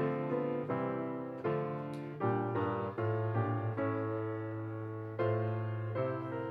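Piano music closing the service: slow chords struck about once a second, each fading away, with one longer held chord in the middle.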